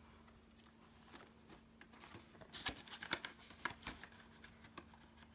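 Faint handling of polymer banknotes and a clear plastic binder pocket: quiet at first, then a few soft, crisp crinkles and ticks from about halfway in as the notes are tucked away.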